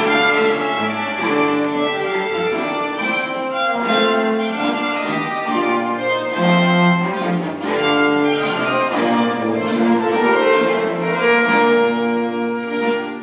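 Live baroque string ensemble playing dance music, violin carrying the tune over a cello bass line.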